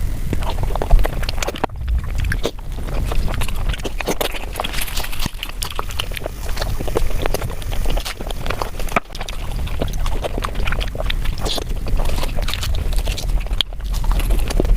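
Close-miked eating sounds: fast chewing and crunching, dense with short clicks and crackles, with brief breaks about two seconds in and about nine seconds in.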